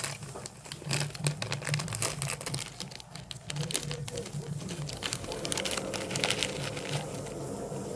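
Plastic snack wrappers crinkling and rustling as they are handled, a dense run of sharp crackles.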